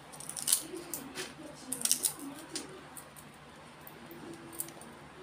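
Roasted fox nuts (phool makhana) crackling as they are crushed between fingers on a steel tray: several crisp snaps over the first three seconds, and one more near the end.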